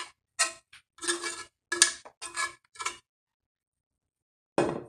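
A metal spoon knocking and scraping in a plastic bowl while chicken and cornbread dressing are mixed: a run of short, slightly ringing clinks over the first three seconds, then a pause and one more near the end.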